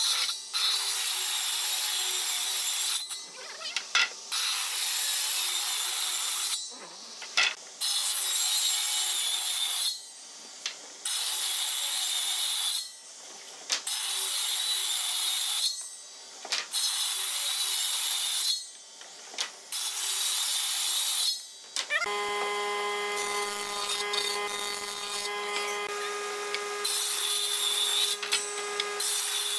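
A woodworking combination machine (table saw and jointer) cutting wood in a series of loud passes, each two to three seconds long with short breaks between them. About two-thirds of the way through, the sound changes to the machine's steady motor hum as a board is fed over the jointer.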